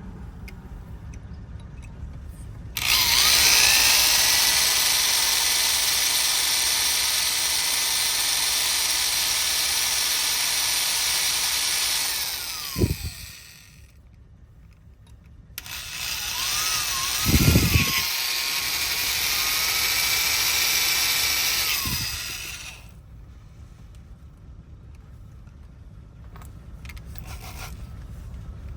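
Electric drill boring into a car door lock, with a bit the locksmith calls already dull. It runs in two long bursts, the first about nine seconds and the second about six, each winding down as the trigger is let go, with a knock or two in between.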